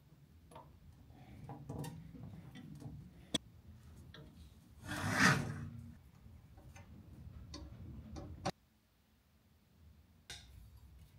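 Handling of a steel drill vise and workpiece: scattered light metal clicks and taps, with a louder scraping rub about five seconds in and a sharp click at about eight and a half seconds.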